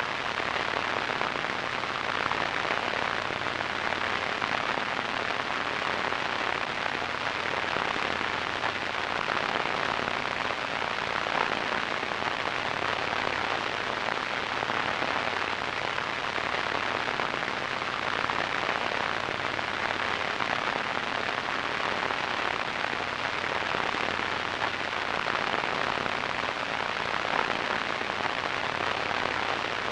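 Radio static: a steady hiss, strongest in the middle range with little deep bass or high treble.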